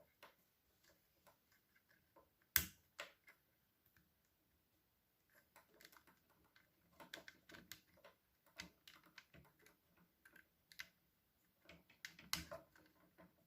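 Hard plastic parts of a Dino Megazord action figure clicking and tapping as it is handled and posed: faint scattered clicks, a sharper click about two and a half seconds in, and a busier run of clicks in the second half.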